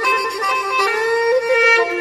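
Instrumental Isan lam backing music: sustained khaen (free-reed mouth organ) notes under a saw (Thai bowed fiddle) playing a melody that slides up between notes about halfway through.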